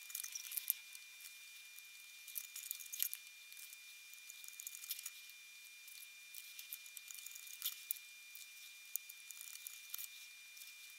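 Faint rustling and small irregular clicks from hands handling self-adhesive RGB LED strips, peeling off the backing tape and pressing the strips onto a 3D-printed plastic holder.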